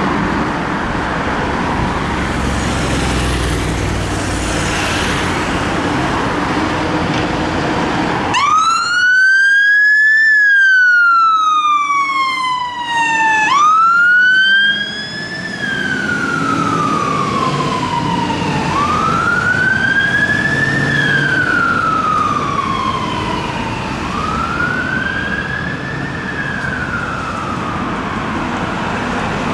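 Road traffic and an engine running, then about eight seconds in a fire engine's siren starts up loud on a slow wail, sweeping up and down in pitch about every five seconds. About six seconds later it drops in loudness and keeps wailing.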